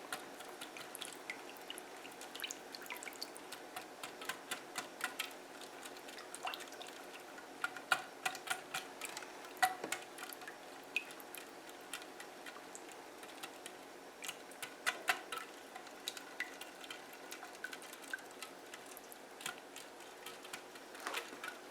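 A whisk mixing cream of chicken soup in a bowl: light, irregular clicks and taps of the whisk against the bowl, with wet stirring sounds.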